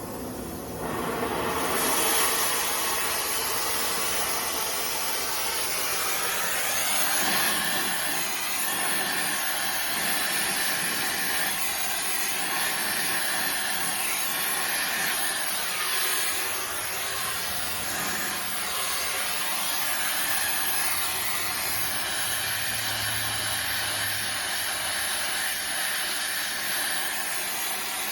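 Gas torch flame hissing steadily as it heats a rusted, seized ball joint nut to free it. The hiss comes up about a second or two in and holds steady.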